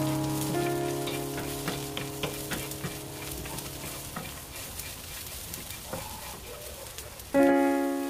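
A wooden spatula stirring and scraping dried anchovies, almonds and chilli in a hot nonstick frying pan, with a light frying sizzle. It makes irregular quick scrapes and taps, two or three a second. Piano music fades away over the first few seconds and comes back loudly near the end.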